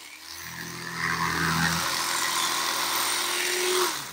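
Electric fillet knife running with a steady motor hum as its blade saws along the backbone of a red drum; the motor cuts off near the end.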